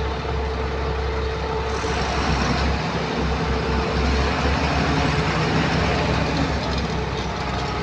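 Heavy diesel engine of an excavator running steadily under working load, its note shifting slightly in the middle as it works.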